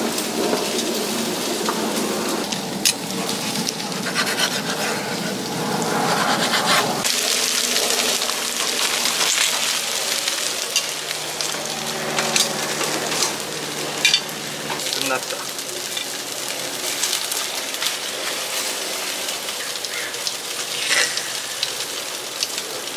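Meat and vegetables sizzling on a barbecue grill: a steady crackling hiss, with a few sharp clicks of metal tongs and utensils.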